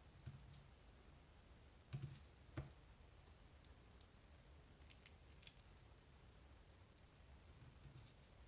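Faint, scattered small clicks and taps of tools and parts being handled while a dimple lock cylinder is taken apart. The two loudest clicks come about two seconds in and half a second apart.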